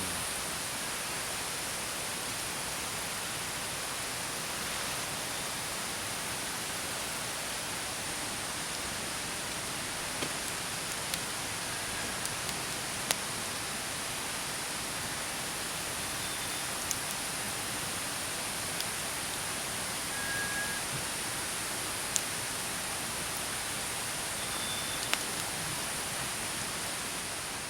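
Steady, even rushing noise with a few scattered sharp clicks and ticks.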